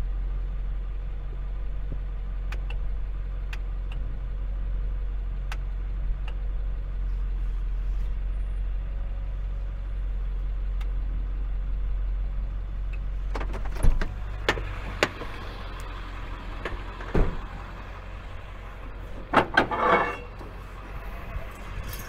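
Tow truck's engine idling steadily with a few faint clicks; past the middle come sharp metal knocks and clattering rattles as the wheel-lift gear is handled at the car's front wheel.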